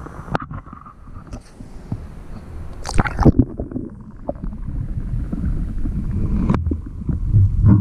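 Water heard through a camera held underwater from a kayak. The sound turns muffled about half a second in as the camera goes under, then a low underwater rumble and sloshing, with a burst of splashing and clatter about three seconds in.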